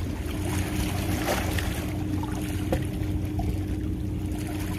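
Boat engine running at a steady drone, under a wash of wind and water noise.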